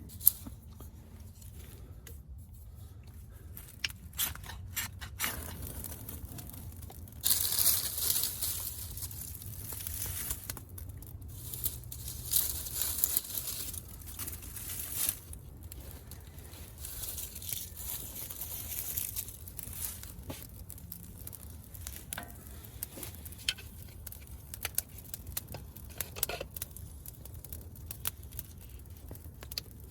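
Scraping, tearing and crunching as a fire is started with a Mora Garberg knife and a ferro rod: scattered clicks and rustles of dry tinder, with several longer hissing scrapes about a quarter of the way in and again around the middle.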